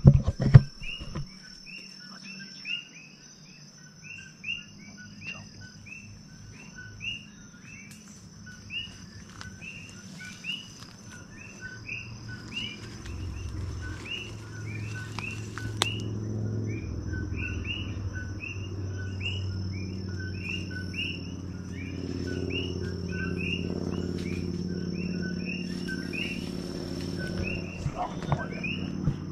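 Chirping repeated about twice a second, from a bird or insect, over a steady high insect whine, with a low hum that grows from about halfway through. A few knocks come right at the start.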